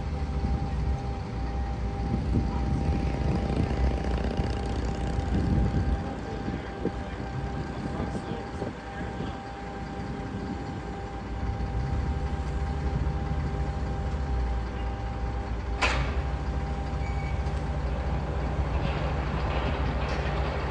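A heavy vehicle's engine runs steadily with a constant whine above it. It drops back about six seconds in, picks up again about twelve seconds in, and a short sharp sound cuts in near sixteen seconds.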